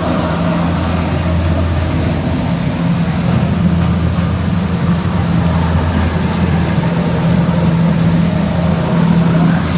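Farm machinery with a heavy engine running steadily at a constant speed, a low even hum.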